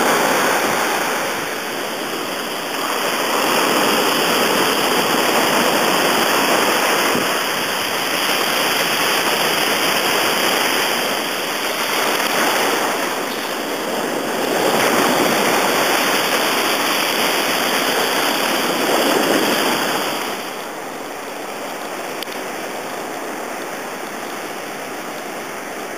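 Sea surf breaking and washing around a kayak, a loud rush that swells and eases every few seconds. About twenty seconds in it drops to a quieter, steadier wash.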